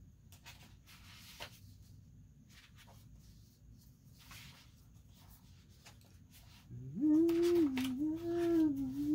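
Faint rustling of paper being pressed and smoothed by hand, then about seven seconds in a woman hums a short wavering tune, the loudest sound here.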